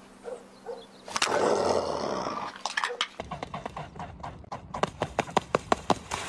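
Mute swan flying in low over the water, a fast, even run of whooshing wingbeats that grow louder as it comes in to land. Before the beats there is a loud rushing noise.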